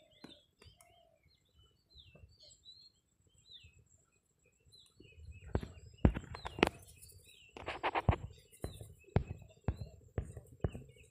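Small birds chirping faintly and intermittently. From about halfway in comes a run of sharp, irregular knocks and taps, louder than the birdsong.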